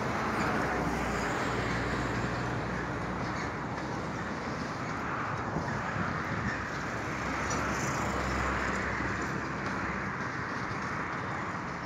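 Freight train boxcars rolling steadily along the track: a continuous rumble of steel wheels on the rails, with a low hum underneath.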